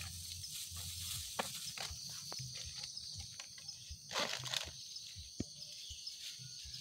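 Plastic bags rustling and crinkling as food offerings are unpacked by hand, with scattered light clicks and one louder rustle about four seconds in, over a steady high chorus of insects.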